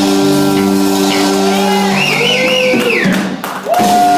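Rock band music: a held guitar chord, then a wavering high note over it, with the sound briefly dropping out shortly before a new held note comes in near the end.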